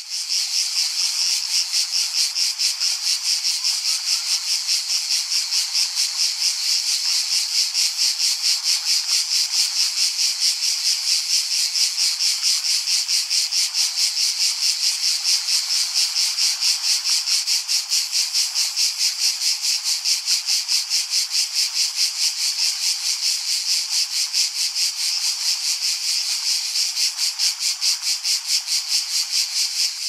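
Cicada calling: a high, shrill buzz pulsing rapidly and evenly, without a break.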